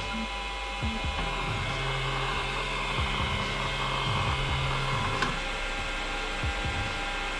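Elegoo Centauri Carbon 3D printer running through its setup routine: its fans run steadily while the stepper motors whine as the print head travels across the enclosure. A low hum runs from about one to five seconds in, and there are a few light clicks.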